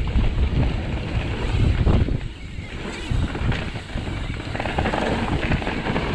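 Santa Cruz mountain bike riding fast over dry, dusty dirt singletrack: a loud, uneven rumble of knobbly tyres and the bike jolting over the trail, mixed with wind buffeting the chest-mounted action camera's microphone.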